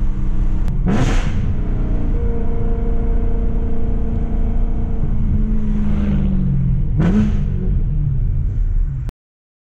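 2011 BMW E92 M3's 4.0-litre V8 running through a loud aftermarket GTHAUS Meisterschaft exhaust, revs rising and falling under way. There are two brief sharp bursts with a quick rise in pitch, about a second in and again near the seven-second mark. The sound cuts off suddenly about nine seconds in.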